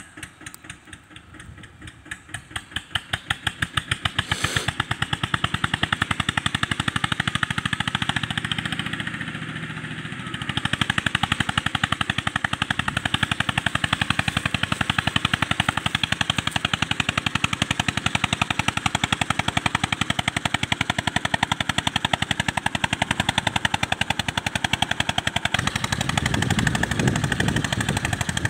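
Diesel tractor engine working hard, hauling a loaded sugarcane trolley through a waterlogged, muddy field: a rapid, even chug of exhaust beats that grows louder as it approaches, eases briefly about ten seconds in, then picks up again and stays loud.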